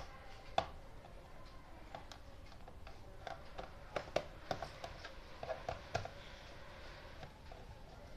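Light clicks and taps of a small screwdriver and screws against a plastic case as the screws are taken out, with a cluster of quick clicks about four to six seconds in.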